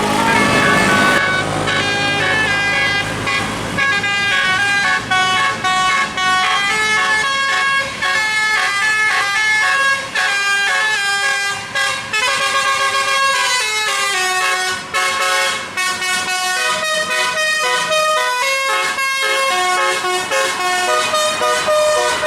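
A bus's telolet horns, a set of musical air horns, playing a long tune of quick stepped notes, often several notes at once, with short breaks between phrases.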